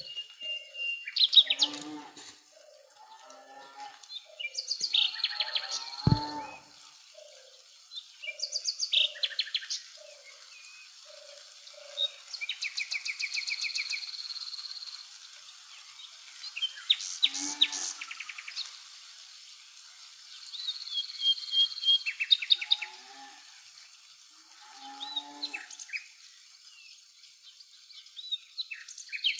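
Several birds calling and singing in turn: short chirps, rapid trills and whistled notes, over a steady high hiss. Early on, a run of low, evenly spaced notes repeats about twice a second.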